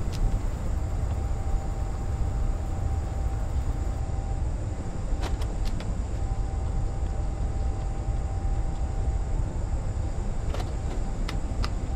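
Steady low machine rumble with a faint even hum, broken by a few light clicks about five seconds in and twice near the end.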